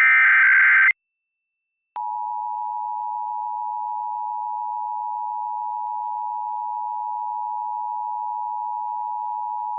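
Emergency Alert System Required Monthly Test: a burst of SAME digital header data, a second of warbling, chirping data tones that ends in silence, then the EAS two-tone attention signal, a steady loud dual-pitched beep starting about two seconds in.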